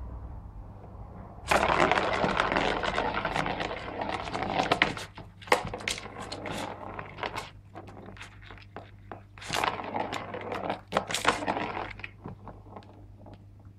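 A Bengal cat clawing and pawing at a corrugated-cardboard scratch pad and its plastic ball-track toy: two bursts of scratchy raking, the first starting about a second and a half in and the second near the end, with sharp clicks and knocks between.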